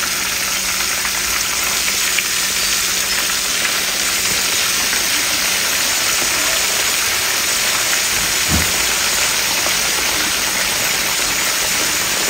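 Breaded fish fillets deep-frying in hot oil in a cast-iron skillet: a steady, crackling sizzle. A brief dull knock sounds about eight and a half seconds in.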